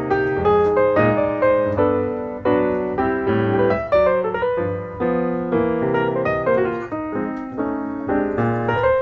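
Background piano music: a solo piano playing a flowing melody over chords, each note struck and fading.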